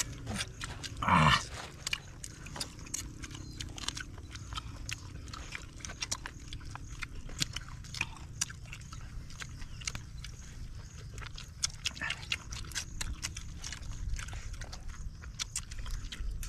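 Several people eating grilled chicken and rice with their hands: wet chewing, lip-smacking and sucking on bones, a steady run of short sharp clicks. One short, louder call sounds about a second in.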